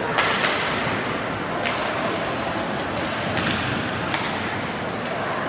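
Ice hockey game play: several sharp knocks and cracks, two close together at the start and a few more scattered, of sticks and puck striking over the rink's steady background noise.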